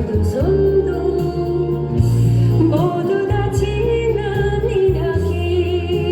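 Korean trot song: a sung melody with held, wavering notes over band accompaniment and a steady bass line.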